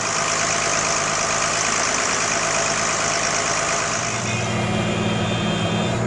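Tractor engine running steadily while driving a Jay Lor vertical feed mixer wagon that churns and grinds a load of hay, grain and water. About four seconds in, a steady low engine hum comes up louder.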